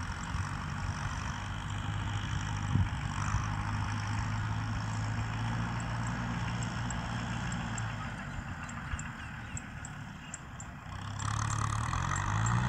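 Kubota M6040 tractor's diesel engine running steadily in the field. Near the end it gets louder and its pitch rises as the engine speeds up.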